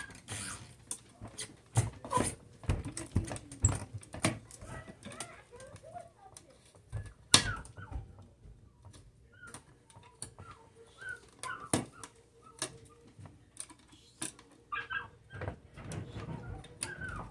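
Hand tools working on electrical cable overhead: scattered sharp clicks and snips of pliers or wire strippers on the wires, the two loudest snaps about seven and twelve seconds in.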